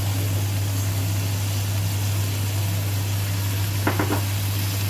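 Sauce sizzling faintly as it is poured into a hot wok of fried prawns, over a steady low hum. A few quick clinks come close together about four seconds in.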